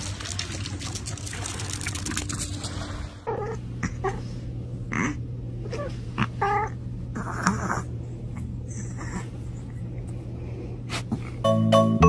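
Water splashing as a dog wades in the shallows, then a kitten mewing several times in short high calls over a steady low hum. Piano music comes in near the end.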